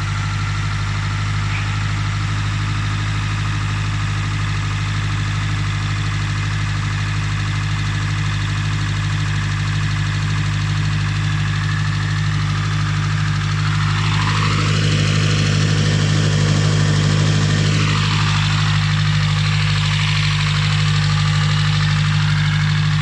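Nissan Primera P11's SR20DE four-cylinder engine running steadily with a knock, which the owner puts down to the hydraulic lifters and oil that is too thick after an oil change.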